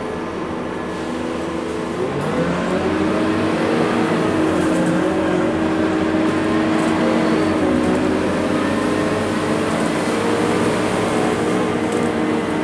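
Scania K230UB bus's rear-mounted diesel engine, heard from inside the passenger cabin: idling, then about two seconds in the bus pulls away and the engine note rises, settling into a steady hum as it gets under way.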